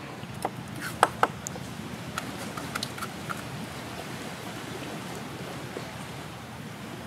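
Steady noise of wind and surf on a beach. Over it comes a quick run of sharp clicks and taps in the first few seconds, loudest about a second in.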